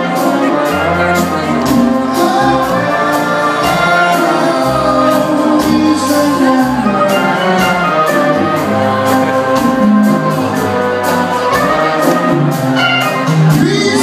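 Live band music: horns playing over congas and a steady drum beat.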